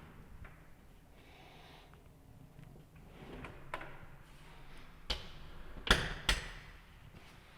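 Scattered light clicks and knocks of kitchen cabinet installation work. Near the end come three sharp knocks in quick succession, the middle one loudest.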